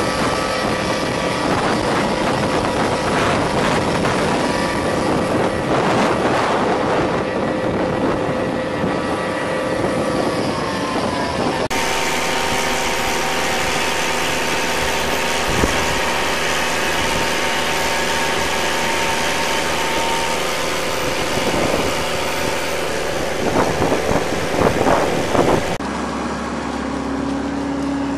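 Excavator engine and hydraulics running steadily as a hydraulic ditch-cleaning attachment works in a water-filled ditch, with a steady machine whine. The sound changes abruptly about twelve seconds in and again near the end, to a tracked tractor running.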